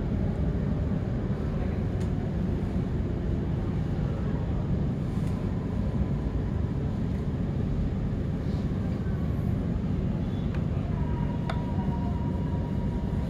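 Cabin sound of an HCMT electric suburban train slowing along a station platform: a steady rumble of wheels and running gear. About 11 seconds in a thin steady high tone sets in, with a couple of faint clicks.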